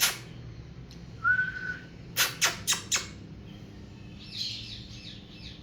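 Grey parrot making non-word sounds: one short whistle about a second in, then four sharp, short calls in quick succession, and soft chattering near the end.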